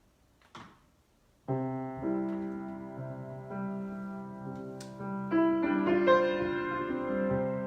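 Piano improvisation beginning with sustained, slowly changing chords about a second and a half in, after a brief soft rustle.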